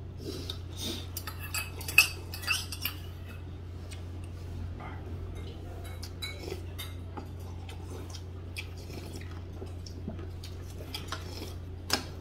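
Cutlery clinking and tapping against dishes at a meal table, in a flurry over the first few seconds with the loudest clink about two seconds in, then scattered clinks and another sharp one near the end. A steady low hum runs underneath.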